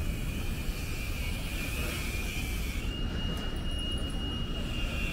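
Steady outdoor city street background: a continuous low rumble, with a thin high steady tone coming in about three seconds in.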